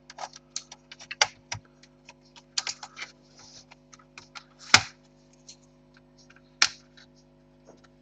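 Plastic clips of a Toshiba Satellite C55 laptop's bottom case clicking as the case is pried apart with a prying tool: a run of small clicks, with two louder snaps about five and seven seconds in.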